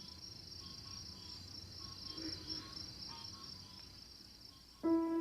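Crickets trilling steadily in a high-pitched night chorus, with fainter broken calls lower down. Near the end, string music comes in loudly.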